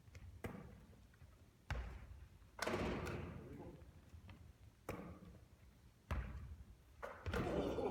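A basketball thudding on the court and the hoop: about seven sharp knocks, irregularly spaced a second or so apart, each with a short echo.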